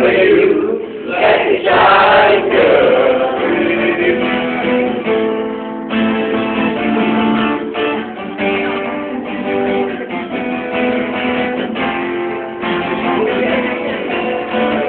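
Acoustic guitar playing a song, with a voice singing during the first two or three seconds and then an instrumental stretch of held notes.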